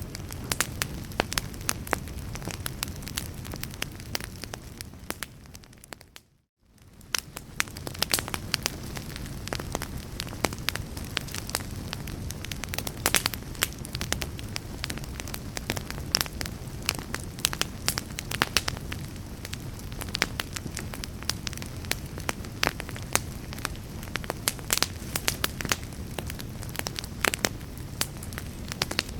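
Wood fire in a fireplace crackling, with frequent sharp pops and snaps over a low steady rumble of flame. About six seconds in the sound fades away almost to nothing and then fades back in.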